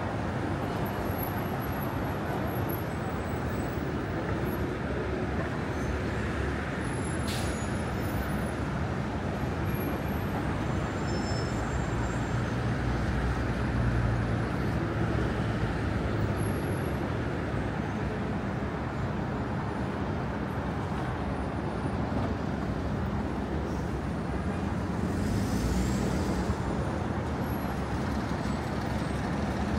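City street traffic: a steady rumble of buses and cars passing, swelling a little around the middle, with a brief higher hiss near the end.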